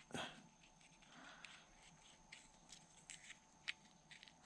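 Near silence, with a few faint small clicks and scrapes from a metal Zippo lighter insert being handled as its parts are taken out.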